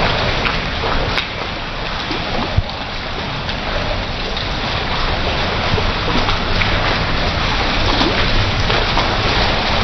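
Heavy rain falling steadily and splashing on hard paving and walls, with a few sharp drip ticks.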